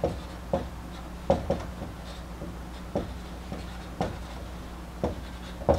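Dry-erase marker writing on a whiteboard: irregular short taps and scrapes as symbols are written, roughly one or two a second, over a faint steady low hum.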